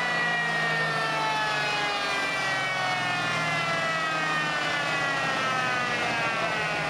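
Chevrolet El Camino on a chassis dyno spinning down after a pull: a whine that falls slowly and steadily in pitch as the drivetrain and rollers coast down.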